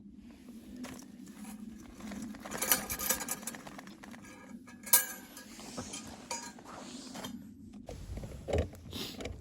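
Cookware and utensils being handled: a run of clinks and knocks, with one sharp click about halfway through and duller thumps near the end.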